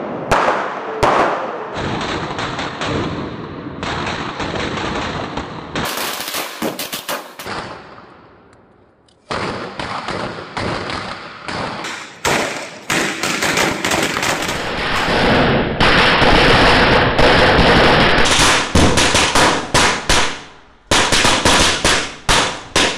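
A mass of bijli firecrackers going off together, a rapid crackle of many small bangs a second. It fades and stops briefly about eight seconds in, then picks up again and grows louder and denser in the second half.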